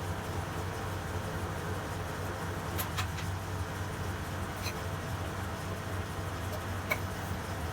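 Grazioli Fortuna metal lathe running with a steady low hum, with a few light, sharp metallic clicks about three, five and seven seconds in.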